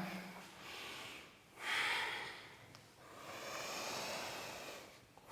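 A woman breathing audibly with effort during a push-up into chaturanga: three airy breaths, the middle one the loudest.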